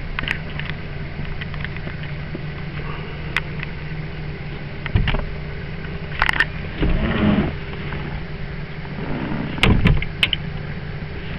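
Knocks, bumps and rustles of someone moving about inside a small fibreglass boat's cabin, about six sharp knocks in all with the loudest near the end, over a steady low hum.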